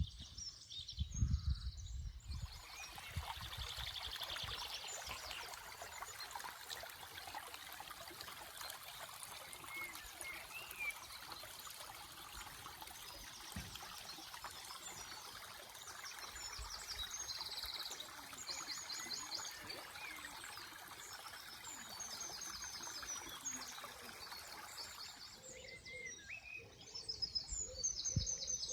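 Stream water running steadily, with small birds singing short repeated trills over it. The water sound comes in about two seconds in and stops near the end, framed by low rumbles.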